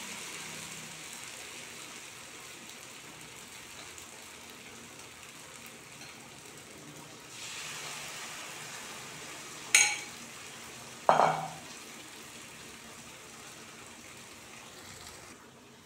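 Hot oil sizzling steadily as batter-coated banana slices deep-fry in a small pan. About seven seconds in the sizzle swells as another battered slice goes into the oil, and two sharp clinks follow a little over a second apart.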